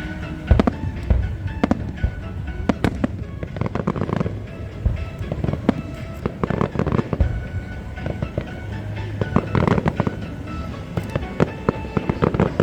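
Aerial fireworks bursting in a rapid series of sharp bangs and crackles, loudest in clusters about half a second in, around four seconds in, around seven seconds in and near ten seconds. Music plays underneath.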